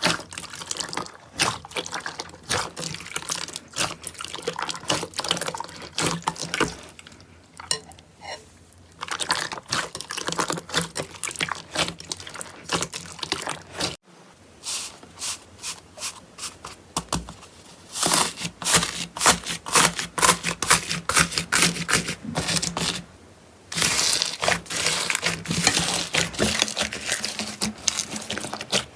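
Slime being squeezed and pressed by hand, with dense wet clicking, popping and crackling. The sound changes to a second slime partway through.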